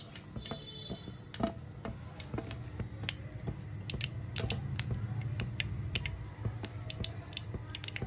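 Cooking oil heating in an iron kadhai, giving scattered small pops and crackles at irregular intervals over a low steady hum.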